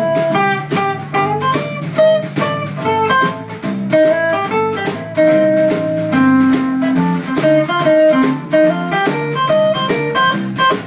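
Acoustic guitars playing an instrumental break: a picked single-note melody line over strummed rhythm chords.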